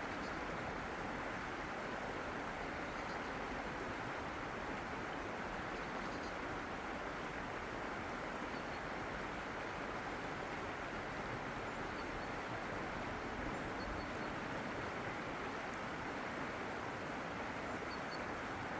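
Steady, even rushing noise, with a few faint, short high chirps now and then.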